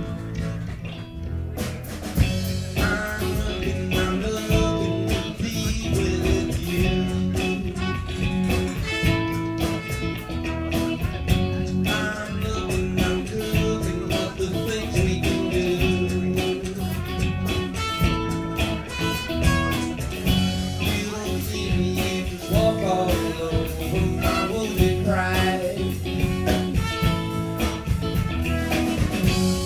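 Live band playing a funky soul-pop song: drums, electric bass, acoustic and electric guitars, with trumpet and a lead singer. The full band comes in about two seconds in after a quieter opening.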